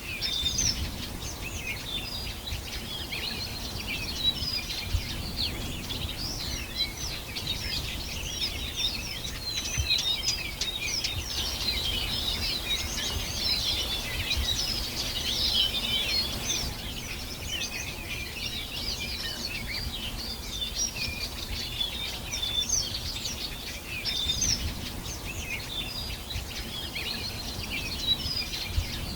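A chorus of many songbirds chirping and trilling at once, denser for a stretch in the middle, over a low background rumble.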